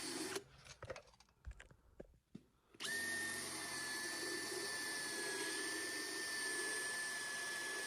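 Power drill boring a 5/32-inch hole: it stops about half a second in, a few small clicks follow, then it starts again near three seconds and runs steadily with a high whine.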